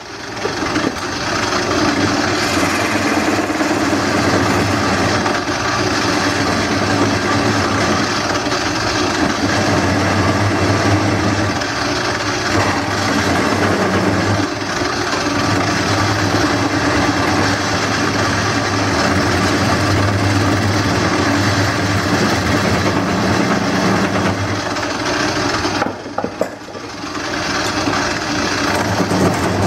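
Wood lathe running with a gouge cutting into the spinning bowl blank as it is hollowed, a steady cutting noise over the motor's hum that briefly drops off near the end.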